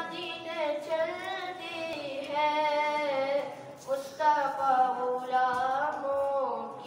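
A boy singing a naat, a devotional poem in praise of the Prophet, solo and unaccompanied. He holds long notes that waver and bend, with a short breath about four seconds in.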